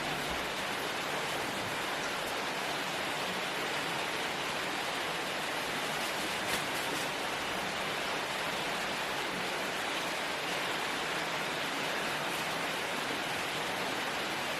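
Steady rushing of running water at a fish-farm pond, with one faint click about halfway through.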